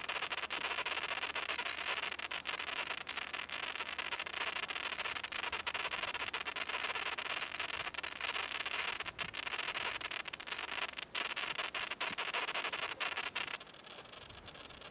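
A steady, high hissing noise, broken by many brief dropouts, that cuts off suddenly near the end and leaves a fainter hiss.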